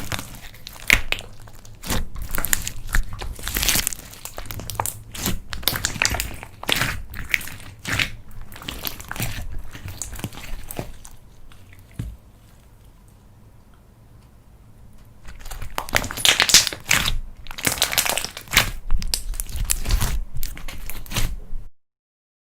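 Homemade slime being squeezed, stretched and folded by hand, giving an irregular run of sharp clicks and crinkly noise. It eases off for a few seconds in the middle, picks up again, then cuts off suddenly near the end.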